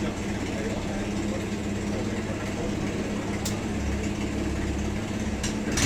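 Steady low hum of a running Alpha Laser micro laser welding machine, with a single sharp tick about three and a half seconds in and a few more near the end.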